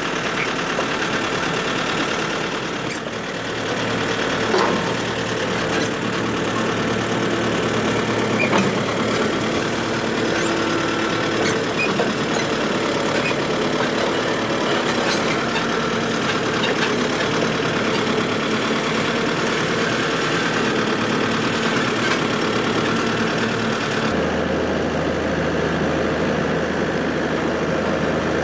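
Diesel engine of a tractor or mini excavator running steadily, with a few sharp knocks. The engine note shifts abruptly near the end.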